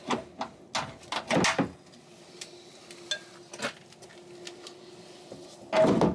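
Metallic clinks and knocks from prying a rubber exhaust hanger off a BMW E46's exhaust with hand tools: a cluster of knocks in the first two seconds, a few scattered clinks, then a louder clatter of the exhaust near the end.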